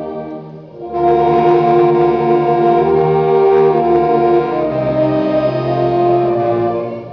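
An ensemble of bass clarinets playing a hymn in long held chords. A phrase dies away at the start; after a short breath a new phrase begins about a second in and is held until it fades near the end.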